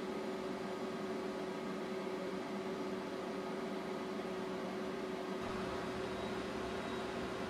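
Steady hiss with a constant humming tone and no speech or music; a lower hum joins about five seconds in.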